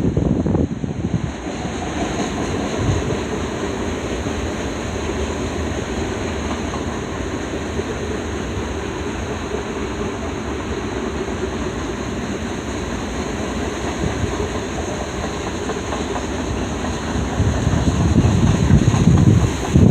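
Freight train rolling steadily past, a continuous rumble of cars on the rails. Wind buffets the microphone at the start and again near the end.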